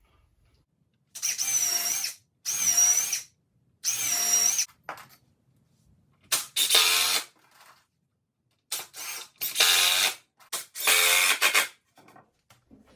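Power drill/driver running in short bursts, about seven times, its motor whine rising and dipping in each, as screws are driven while assembling a wooden table frame.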